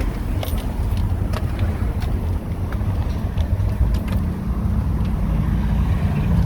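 Motor vehicle engine running steadily, a continuous low rumble, with a few faint clicks over it.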